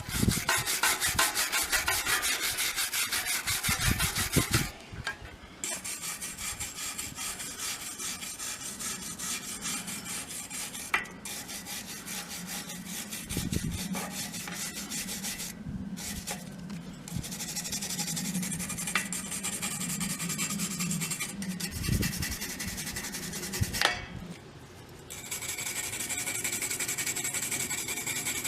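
Rapid, even back-and-forth rubbing and scraping strokes by hand, as in sanding or scrubbing rust off bicycle parts. The sound changes abruptly at several cuts.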